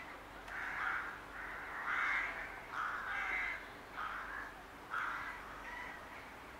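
Rook calling: a series of about six harsh, grating caws, roughly one a second, the last ones fainter.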